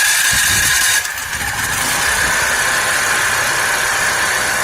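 Duromax XP4850EH portable generator's engine running steadily just after starting, a little louder for the first second before settling.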